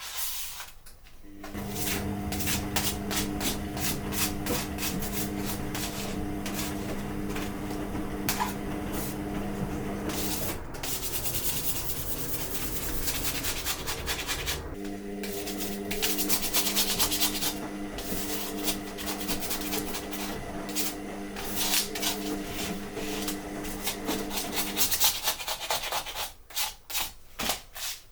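A scraper scraping softened adhesive residue off a spring-steel 3D-printer build sheet, in rapid, continuous rasping strokes. A steady hum runs under the scraping, drops out for a few seconds around the middle, and stops a few seconds before the end.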